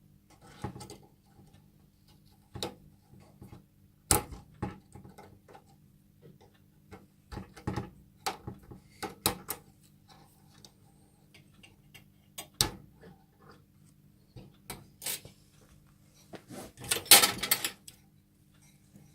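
Irregular clicks, taps and knocks of hands and tools working on a gas hob's parts, with a denser run of rapid rattling clicks near the end, over a faint steady hum.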